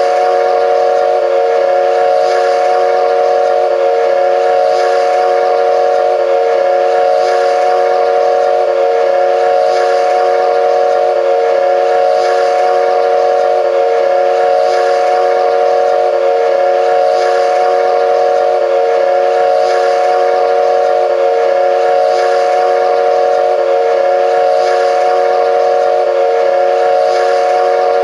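A multi-tone horn sounding one steady, held chord of several notes, with a faint pulse repeating about every two and a half seconds.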